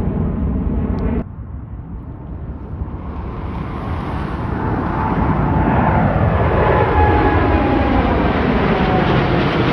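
Boeing 787-8 jetliner climbing out after takeoff: its turbofan engines' noise builds steadily as it passes overhead, with whining fan tones gliding downward near the end. About a second in, the engine noise of another departing jet, a Boeing 737-900, cuts off abruptly.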